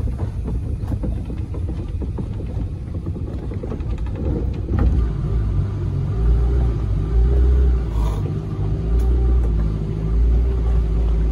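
Small speedboat's outboard motor running under way, with water rushing past the hull and a heavy low rumble. The engine note holds steady from about six seconds in.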